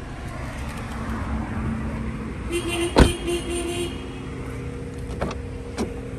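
A 2008 Toyota Camry's door shut with a single sharp thump about halfway through, followed by two lighter latch clicks near the end as a door is opened again.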